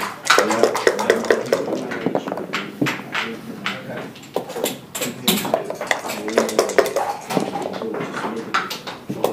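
Backgammon dice being rolled onto the board among scattered sharp clicks of pieces on the wooden board, over a steady murmur of voices in the playing room.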